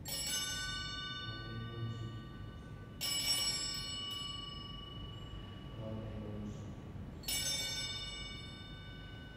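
Altar bell rung three times, about three seconds apart, each stroke ringing on and slowly fading.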